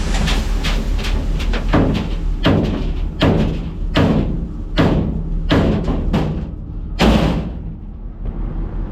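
Repeated heavy knocking and rattling, about ten knocks at uneven spacing, as something is wobbled and shaken to tip out the last debris, over the steady hum of a running machine. The knocks stop about seven seconds in.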